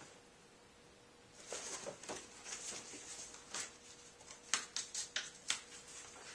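Paperback picture book handled and its pages turned: soft paper rustles, then a run of short crisp page flicks and crinkles.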